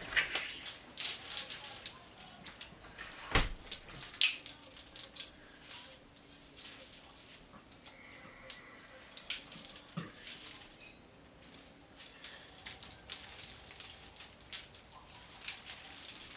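Metal climbing gear, carabiners and cams, clinking and rattling as it is handled and sorted: scattered light clicks with a few sharper knocks about three and four seconds in and again near nine seconds.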